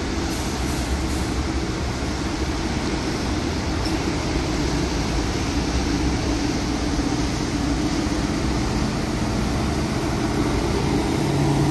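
Marcopolo G8 three-axle double-decker coach's diesel engine running as it pulls away and drives past close by, growing slowly louder.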